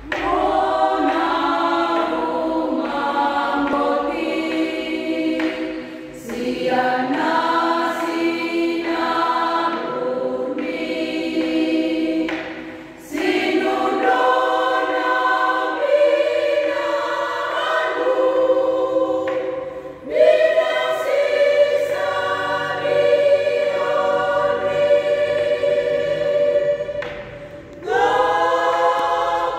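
A women's church choir singing a hymn unaccompanied at rehearsal, in sustained phrases that break off briefly about every seven seconds.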